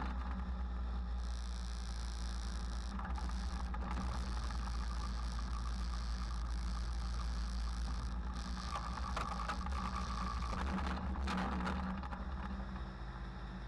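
Engines of a twin-engine pulling garden tractor running at idle: a steady low engine note, slightly quieter near the end.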